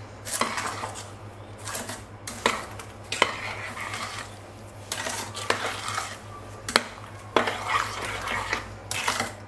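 Spoon stirring granulated sugar into chopped cooked peaches in a stainless steel pot, knocking and scraping against the pot in irregular strokes as the sugar is mixed in for jam.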